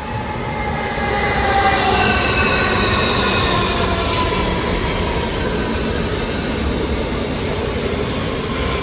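Lastochka (ES2G, Siemens Desiro RUS) electric train pulling into the platform. Its wheels and running gear rumble steadily, growing louder over the first second or two, while several thin whining tones slowly fall in pitch as it slows to stop.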